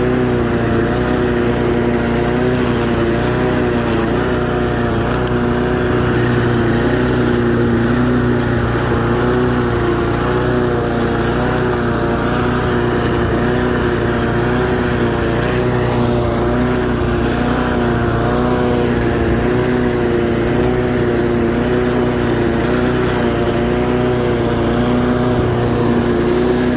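Homemade push mower powered by an 8.5 hp Briggs & Stratton pressure-washer engine, running steadily while cutting grass. Its note wavers slightly up and down in pitch.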